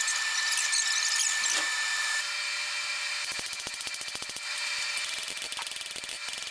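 A handheld power tool running with a high whine and hiss, the whine dropping away about two seconds in, with many sharp metallic clicks throughout.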